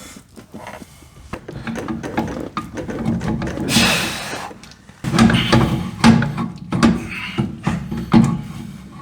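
Hand tools working on metal parts of a truck's rear axle while its differential third member is being fitted: irregular ratchet-like clicking, scraping and knocks. There is a short hissing scrape near the middle and a run of repeated knocks in the second half.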